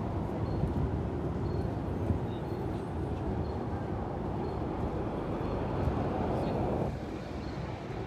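City street traffic: a steady rumble of passing vehicles that drops away suddenly about seven seconds in.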